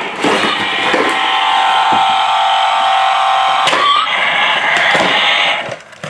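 A cardboard toy box being handled and opened, with a few sharp knocks and scrapes. Under them runs a loud, steady background sound with a held tone, which cuts off about five and a half seconds in.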